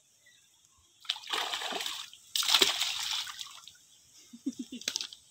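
A hooked kalbasu (black rohu) thrashing and splashing at the lake surface as it is drawn in and lifted out of the water: two bursts of splashing, the second louder.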